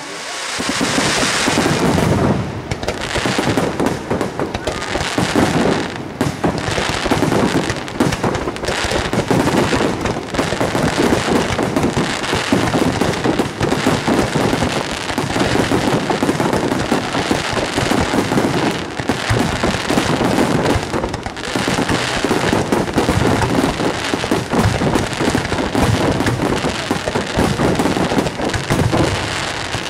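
Aerial fireworks going off in a dense, continuous barrage of bangs and crackles, so many that they overlap into one long rolling rumble.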